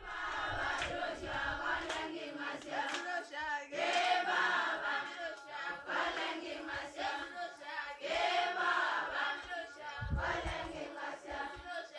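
Group of voices singing together in chorus, the phrases swelling about every four seconds.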